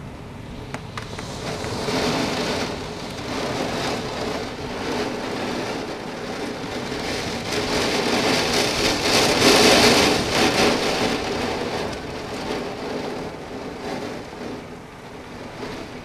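Heavy rain pouring down in a severe thunderstorm, swelling in waves, loudest about ten seconds in, then easing off near the end.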